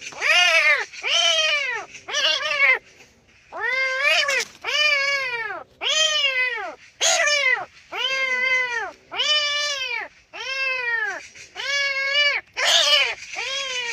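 Kitten meowing over and over, about a dozen loud calls each rising and falling in pitch: the distress cries of a kitten caught in a fishing net.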